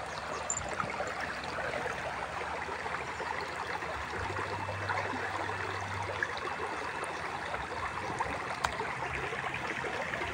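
Shallow rocky stream flowing: a steady rush of water over stones, with a single sharp click near the end.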